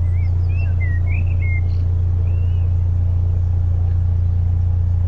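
A narrowboat's engine idling with a steady, even low hum. A bird chirps several times during the first couple of seconds.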